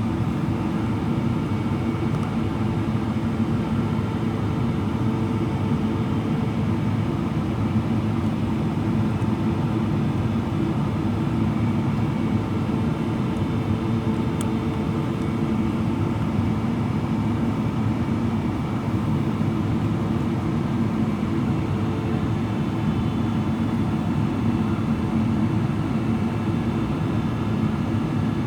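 Steady cabin noise inside a Boeing 777-300ER in descent: the low rush of airflow over the fuselage and the hum of its General Electric GE90 engines, unchanging throughout.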